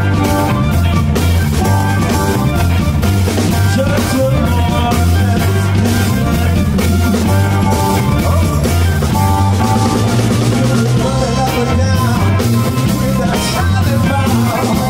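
Live blues band playing: an amplified harmonica carries the lead over electric guitar and drum kit.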